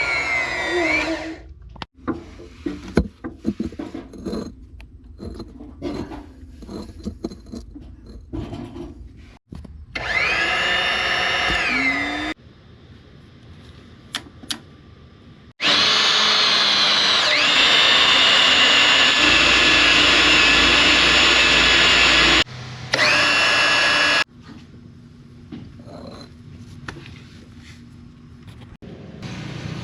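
A power tool runs in several bursts of whine, one long run and a few short ones, its pitch sliding as it spins up and winds down. Scattered knocks and clatter of work fall between the runs.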